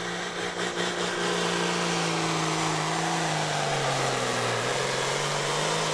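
Outlaw farm-class pulling tractor's engine running flat out under load as it pulls the sled down the track. Its pitch sags about four seconds in, then climbs back.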